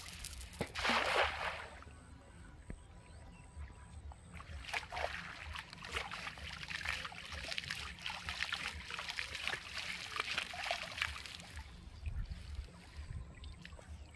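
A cast net landing with a splash in shallow pond water about a second in, then a long stretch of water splashing and sloshing as the net is hauled back in by its rope.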